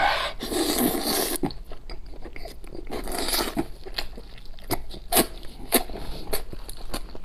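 A person biting and chewing braised pig's head meat (a strip from the pig's mouth area) close to the microphone: chewing with many short smacks and clicks.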